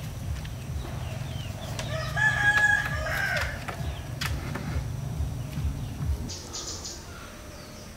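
A rooster crowing once, a single drawn-out call starting about two seconds in, over a low rumble that fades out near the end.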